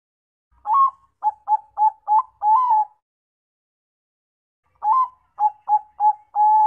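Zebra dove (Bangkok-type perkutut) singing two phrases of its staccato cooing song, about four seconds apart. Each phrase is a first coo, a quick run of short coos and a longer last coo.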